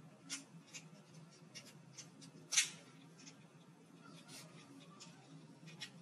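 Light plastic clicks and taps as the hair dryer's plastic handle casing is handled and fitted back together, with one louder, sharper click about two and a half seconds in.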